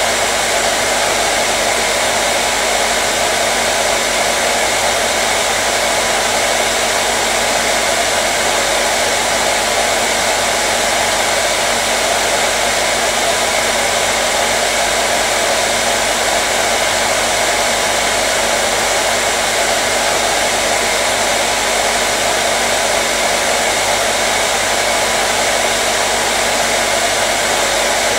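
Hair dryer running continuously, a steady, unchanging rush of air with a faint motor hum, used as white noise.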